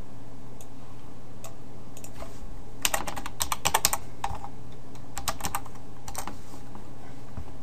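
Computer keyboard typing, with a quick run of key clicks about three seconds in and a few more keystrokes around five to six seconds, over a faint steady low hum.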